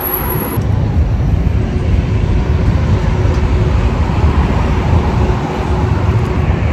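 Wind buffeting the phone's microphone: a steady low rumble.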